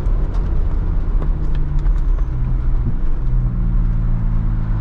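Ford Bronco Raptor's 3.0-litre twin-turbo V6 running at a steady pace, heard from inside the cabin. Under it is a continuous low rumble of the tyres and body on a dirt track, with scattered light ticks.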